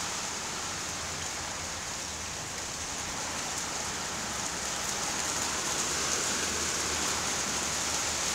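Heavy rain pouring down in a steady hiss during a storm, growing a little louder about halfway through.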